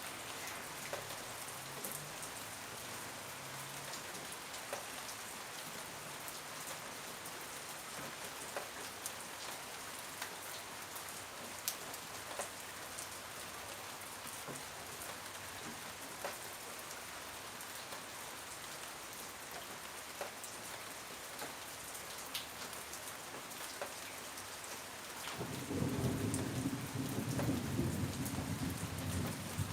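Steady rain falling, with scattered drops ticking sharply. About 25 seconds in, a low rumble of thunder rises and rolls on, becoming the loudest sound.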